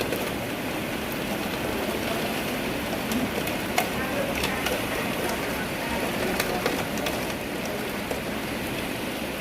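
Steady rainfall, a dense hiss of rain with many single drops clicking sharply on nearby surfaces.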